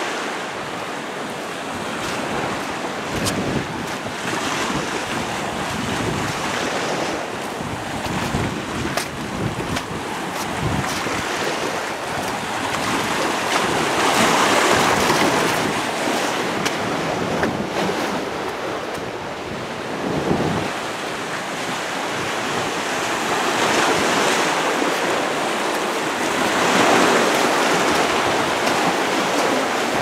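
Waves surging and washing in over rocks and coarse sand, swelling in two louder surges about halfway through and near the end, with wind buffeting the microphone.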